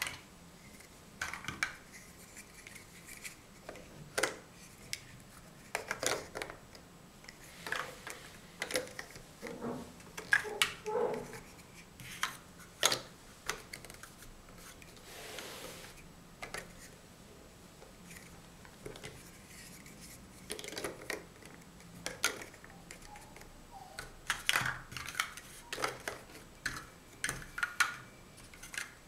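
Large hollow plastic Mega Bloks First Builders blocks being pressed together and set down on a table: irregular sharp clacks and knocks of hard plastic, with a brief scraping rustle about halfway through.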